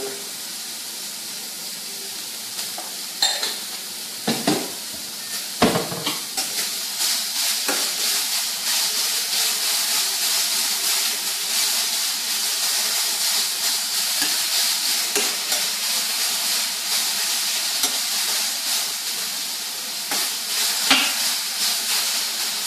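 Green beans sizzling in a stainless steel skillet on an electric stovetop, stirred with a spatula that knocks against the pan now and then. The sizzle grows louder about six seconds in.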